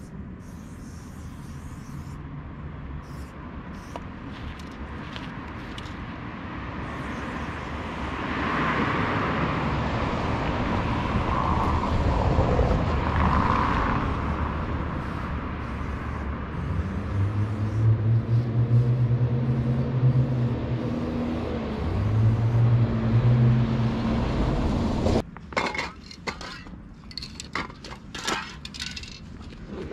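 Street traffic: a motor vehicle draws near and runs close by, its engine giving a low steady hum in two long stretches. The sound then cuts off abruptly, and sharp scattered clicks and clinks follow.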